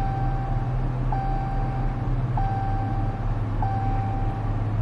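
An electronic beep sounding over and over, each tone held about a second with a short gap, roughly once every 1.2 seconds, over a steady low hum. A sharp click comes right at the end.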